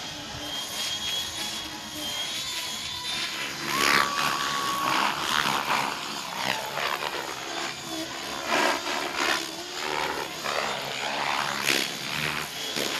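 Radio-controlled model helicopter flying freestyle aerobatics: its rotor whine and blade whoosh surge and sweep up and down in pitch over and over as it manoeuvres.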